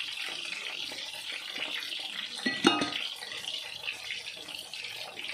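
Hot oil sizzling steadily as breaded calamari rings and French fries deep-fry in a pan and a pot, with one sharp knock about halfway through.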